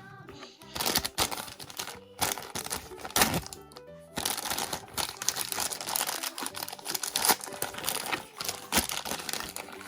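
Plastic packaging crinkling and crackling with sharp clicks as a toy capsule and its blind bag are handled and opened, with background music.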